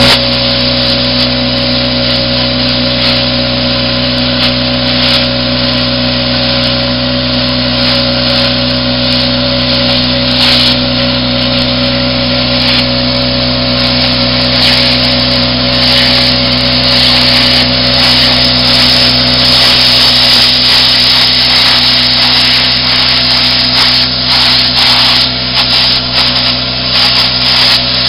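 Plasma cutter cutting through the steel bottom of an ammo can: a loud, steady hiss with a steady hum under it, and crackling that grows more frequent in the second half.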